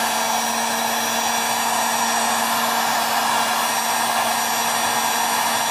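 Handheld electric heat gun blowing steadily: an even rush of air over a constant motor hum.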